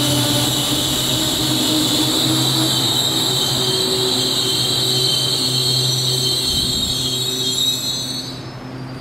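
Taiwan Railways EMU800-series electric train running past at close range: steady loud rolling noise with a strong high hiss and low motor hum, dropping off sharply near the end.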